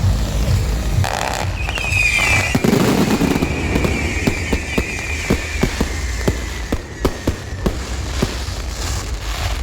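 Fireworks display: a high whistling firework starts a little over a second in and slowly fades, over a string of sharp bangs, two or three a second, that run on until near the end.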